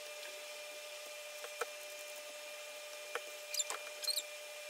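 Spoon scooping solid beef tallow out of a plastic tub: a couple of light clicks, then two short high squeaks as it scrapes the tub, over a faint steady hum.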